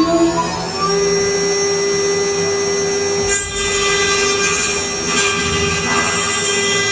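Spindle of a CNC chip-grinding machine finishing its spin-up, its whine rising and levelling off about a second in, then running at a steady pitch. Brief bursts of hiss come and go as the cutter grinds down the chip on the circuit board.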